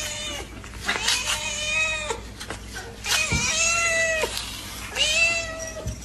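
A cat meowing: three long, drawn-out meows about a second apart, each rising and falling in pitch.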